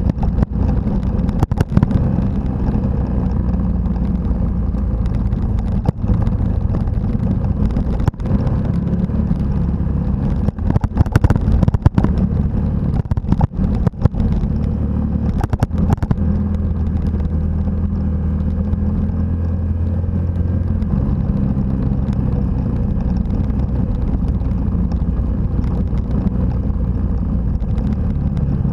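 Motorcycle engine running steadily on the move over a gravel road, its note shifting a little with the throttle, with wind rushing over the microphone. Several sharp knocks come in the first half as the bike jolts over the rough surface.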